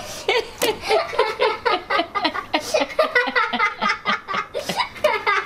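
Sustained laughter: a long run of quick pitched pulses, about four or five a second.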